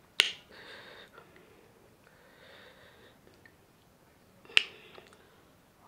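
A crisp panipuri shell being dipped into a glass bowl of spicy pani and lifted out filled: a sharp click just after the start, faint handling noises, and a second sharp click about four and a half seconds in.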